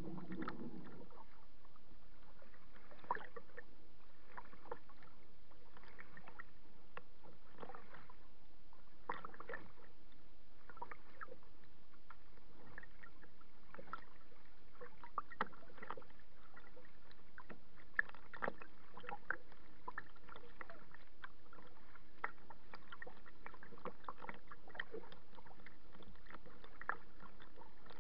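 Kayak on choppy open water: short splashes of water against the kayak every second or two over a steady wash of water noise.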